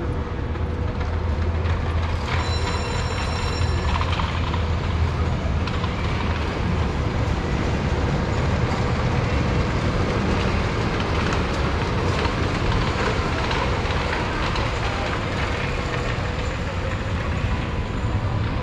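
Steady outdoor city ambience: a constant low rumble under a wash of broad noise, with a brief high-pitched tone about two seconds in that lasts under two seconds.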